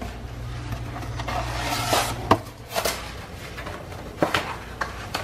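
Kitchen handling noise: scattered knocks and clicks of cookware and utensils, with several sharp taps from about two seconds in, over a low hum that fades after the first two seconds.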